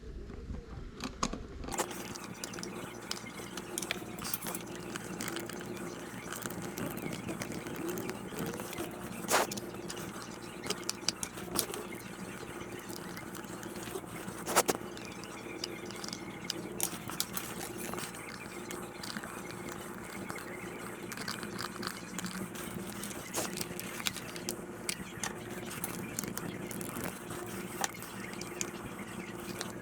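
Scattered clicks and scrapes of hand work on a plastic battery-box opening being widened to fit a USB port, over a steady low hum that starts about two seconds in.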